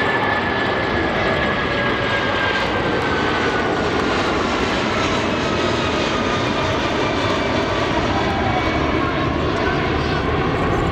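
Airbus A340-600's four Rolls-Royce Trent 500 turbofans at full power as the airliner climbs out after take-off. A steady loud jet noise carries an engine whine that slides down in pitch as the plane passes and moves away.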